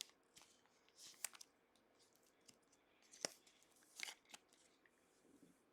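Faint rustling and clicking of trading cards being handled and slid against each other, in a few short separate strokes.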